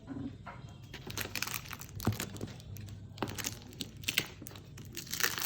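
Packaging being handled and unwrapped: irregular crinkling and tearing with scattered clicks and rustles.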